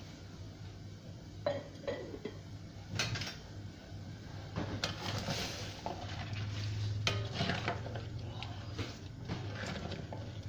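Black plastic spatula stirring coconut-milk broth in an aluminium wok, with scattered clicks and scrapes against the pan. A steady low hum runs underneath.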